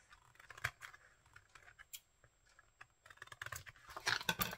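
Scattered light taps and clicks of paper and tools being handled on a craft desk, then a louder rustle of paper near the end as a page of a spiral-bound sketchbook is turned.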